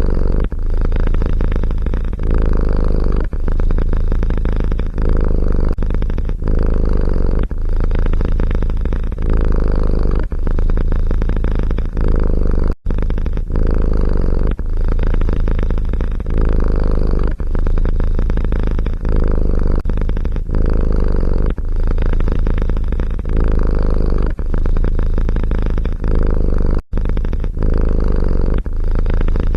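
Domestic cat purring loudly and close up: a low rumbling purr that breaks briefly about every one and a half seconds with each breath.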